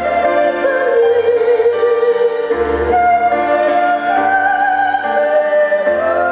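A woman singing in a classical, operatic style through a handheld microphone over instrumental accompaniment, holding long notes with vibrato and moving from note to note.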